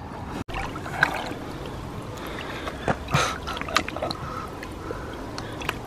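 Lake water trickling and gurgling around a carp held in the margin for release, with a few small splashes from the hands and fish.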